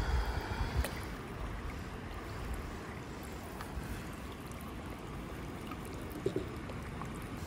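River water sloshing and gurgling through a mesh landing net held in the current, with splashing in the first second as a hand works in the water, then a steady flowing-water sound.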